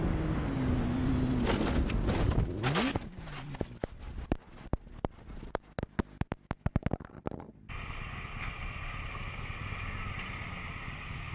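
Sportbike engine running, its pitch gliding up, then a crash: the bike tumbling and scraping along the road, a run of sharp knocks that thin out over about four seconds. About two-thirds in it gives way to a steady motorcycle engine drone in traffic.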